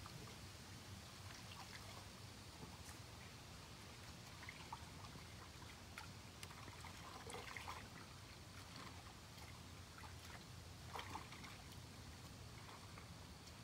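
Near silence: faint outdoor background with a steady low rumble and a few faint scattered ticks.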